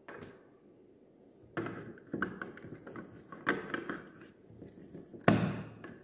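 Hard plastic being handled: an orange lens-shaped piece knocked and clicked into place on a small plastic camera-shaped fan, a string of short taps and scrapes, with the sharpest knock near the end.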